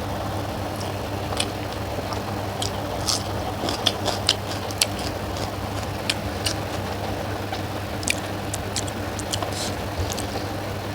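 Close-up eating sounds: wet chewing, with irregular sharp lip smacks and clicks as chicken leg curry is eaten. The loudest smacks come around the middle. A steady low hum runs underneath.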